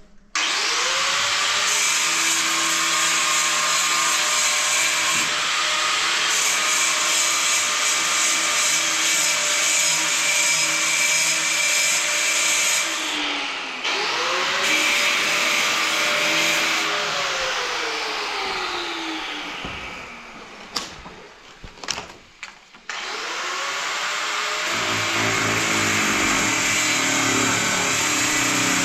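Handheld electric power tool: the motor spins up with a rising whine and runs steadily, winds down, starts again, and winds down more slowly. A few sharp knocks come in the pause, then the tool starts up a third time.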